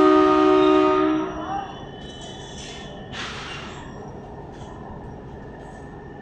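Indian Railways DMU train horn sounding a steady two-tone blast that cuts off about a second in, followed by the train's steady rumble with a brief hiss about three seconds in.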